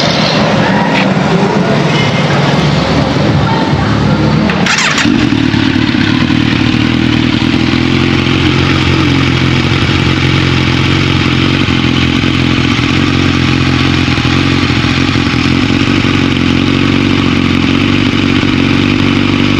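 Kawasaki Z1000R's inline-four engine running through a Yoshimura aftermarket exhaust. For the first few seconds the sound varies unevenly; from about five seconds in it settles into a steady, even running note.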